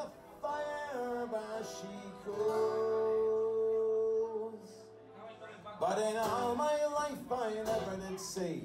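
Background music: a song with acoustic guitar and a sung melody, holding one long note in the middle.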